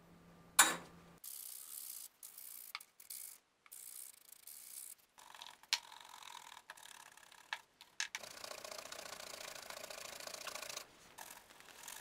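A sharp click, then a leather knife sheath being rubbed and buffed by hand: scratchy rubbing noise in short, choppy stretches, with a longer steady stretch near the end.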